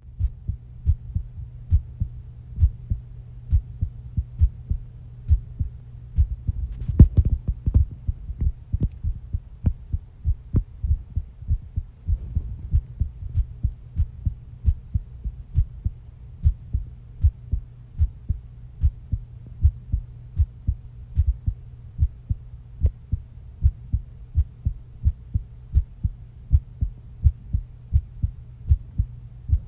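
A person's heartbeat, beating steadily and regularly over a low, even hum. About seven seconds in there is a brief, louder scuffing noise.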